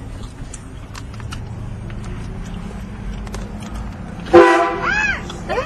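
Vehicle-mounted train horn giving a loud blast about four seconds in, a chord of several tones held for about a second, then trailing off in shorter wavering notes; before it, only the steady low noise of the vehicle driving.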